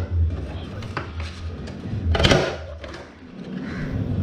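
Hand tools and a plastic motorcycle side panel being handled while its bolt and screw are undone: a few light clicks and knocks, with a louder short clatter just after two seconds in, over a steady low hum.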